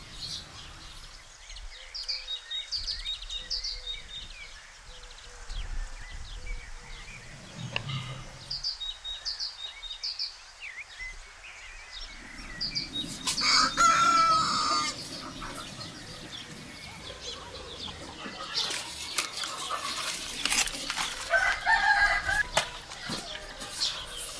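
Village chickens and a rooster: crowing, clucking and wings flapping, loudest in the second half, with small birds chirping in the first half.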